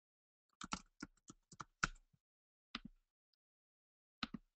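Faint computer keyboard typing: a quick run of about eight keystrokes, then two more pairs of taps.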